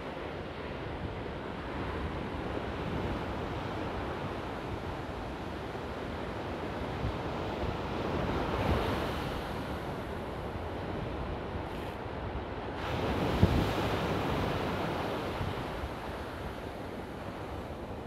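Ocean surf breaking on a beach in a continuous wash of foam. It surges louder about halfway through and again about three-quarters of the way in. Wind buffets the microphone with a low rumble underneath.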